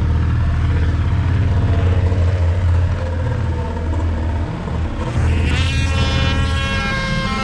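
Steady low rumble of a car driving. About five seconds in, a held high-pitched tone with several overtones joins it.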